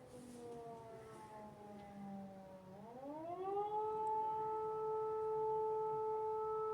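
Civil-defence air-raid siren, its pitch falling as it winds down, then about three seconds in rising again and holding one steady wail, sounding an air-raid warning.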